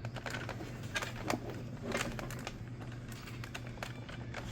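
Scattered small clicks and taps of plastic parts being handled on an opened-up dart blaster, over a steady low hum.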